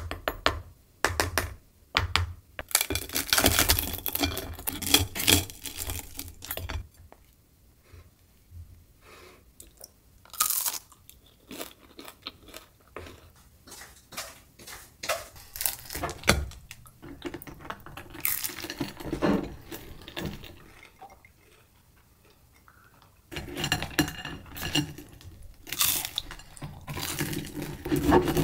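Crispy rice crackers of an ice cream sandwich cracking and crunching as they are cut with a knife and fork and broken apart by hand, in irregular bursts of sharp crackles. It quietens briefly about a third of the way in and again about three quarters through.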